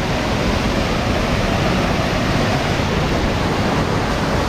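Waterfall pouring: a steady, noisy rush of falling water.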